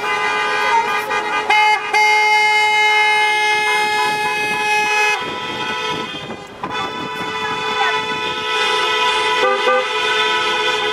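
Several car horns honking together in long, overlapping blasts at different pitches. The horns hold steady for about five seconds, drop away briefly, then start up again.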